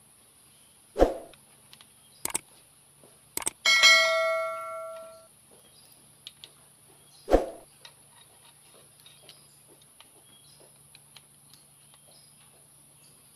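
Metal hand tools working the rocker arms of a Komatsu grader's six-cylinder diesel cylinder head during valve-clearance adjustment. A few sharp clicks and dull knocks sound, and about four seconds in a tool strikes metal with a clear ring that dies away over about a second and a half.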